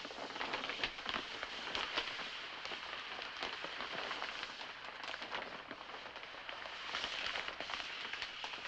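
Low, steady crackle and hiss made of many small irregular ticks.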